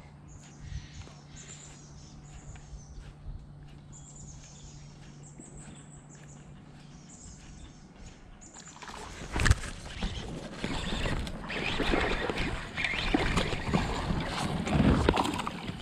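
Faint bird chirps over a low steady hum, then, about nine seconds in, a hooked bass thrashing at the surface after taking a topwater frog. Loud, uneven splashing and rod handling last to the end, starting with a sharp splash.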